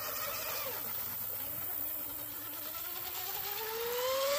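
Electric motor whine of a brushless RC outrigger boat on a 4S lipo, running at speed across the water. The pitch drops about half a second in, then climbs steadily from about two seconds in as the boat speeds up again.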